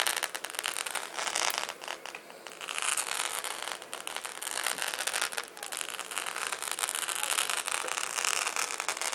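Fireworks crackling: a dense run of rapid, sharp pops and sizzles that swells and fades in waves, with no heavy booms.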